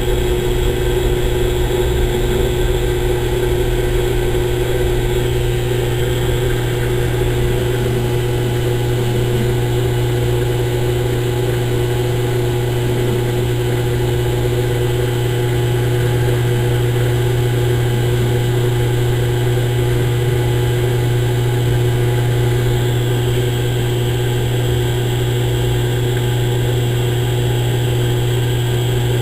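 Consul Maré Super 10 kg top-loading washing machine running with a steady, unbroken low hum.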